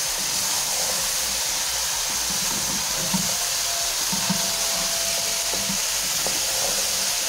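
Potato and cauliflower pieces with onion and tomato sizzling steadily in hot oil as they are stirred with a spoon, with a couple of light knocks of the spoon on the pot.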